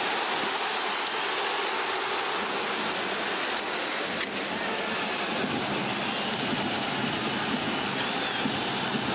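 Steady crowd noise of an ice hockey arena during live play, with a couple of sharp knocks from sticks, puck or boards around the middle.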